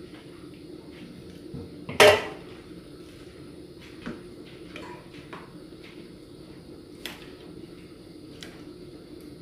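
Kitchen knife clicking and scraping on a granite countertop as skin and fat are trimmed off raw chicken thighs, with one loud ringing clatter about two seconds in and a few lighter clicks after it. A steady low hum runs underneath.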